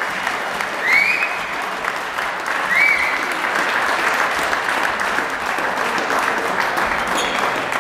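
Spectators applauding in a sports hall: a steady patter of many hands clapping, with two short high calls about one and three seconds in.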